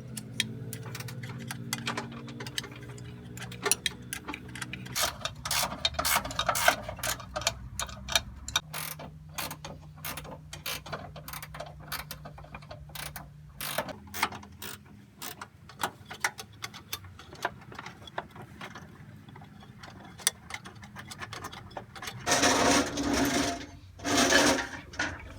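Mechanical clicking and ticking, fast and irregular, over a steady low motor hum that stops about halfway through, then two loud noisy bursts of a second or two each near the end.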